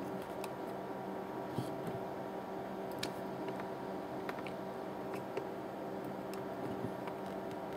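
Steady low hum with a few faint, short clicks and taps, spaced a second or so apart, as a soldering iron tip is worked against the solder joints on the back of a circuit board to free a choke.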